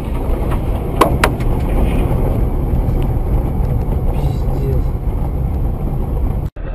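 Steady low rumble of road and engine noise from inside a moving vehicle, with two sharp clicks about a second in.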